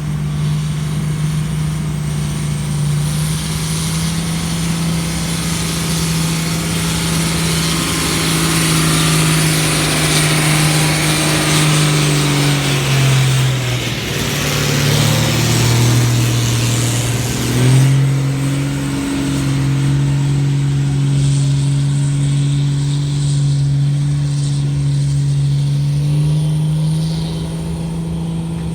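Heavy diesel engine running steadily; its pitch drops briefly about halfway through, then comes back up. A hiss rides over the engine for much of the first half.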